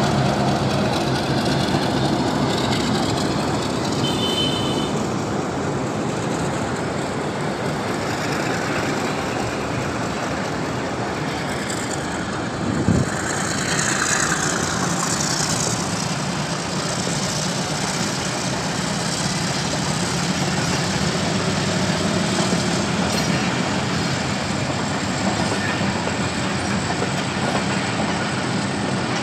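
Pakistan Railways diesel-hauled passenger train passing close by: the locomotive and then a line of coaches rolling over the track in a steady rumble of engine and wheels. A single sharp knock comes about halfway through.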